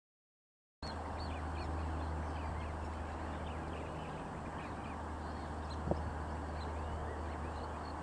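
Wetland birds calling: many short high chirps and twittering notes, with a run of evenly repeated high notes near the end, over a steady low rumble. The sound begins about a second in after silence, and a single sharp knock comes about six seconds in.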